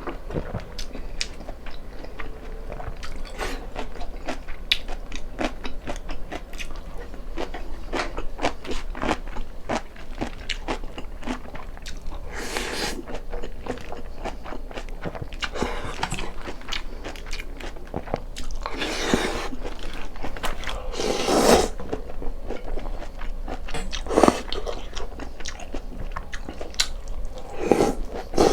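Close-miked mukbang eating: steady chewing with many small crunchy bites, and a few louder, longer noisy bursts in the second half.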